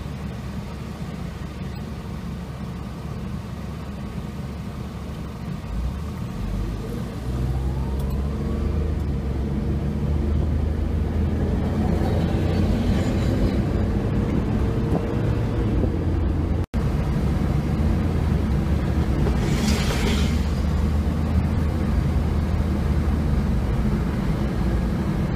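Car engine and road noise: a low idle at first, then the engine revs up with a short rising whine as the car pulls away about seven seconds in, settling into a steady rumble of driving with tyre noise.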